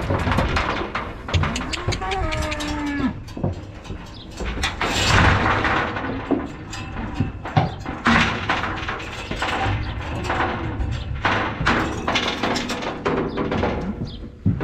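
Dairy cattle being herded: a cow moos once, falling in pitch, about two seconds in, amid repeated knocks and thumps.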